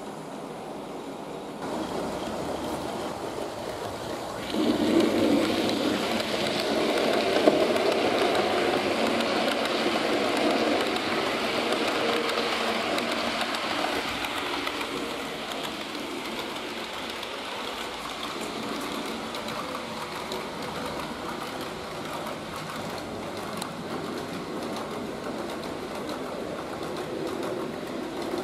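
Model trains running on the layout's track: a steady rushing rumble of metal wheels on the rails and the locomotive's motor. It grows louder twice in the first five seconds, is loudest for several seconds after that, then settles slightly quieter.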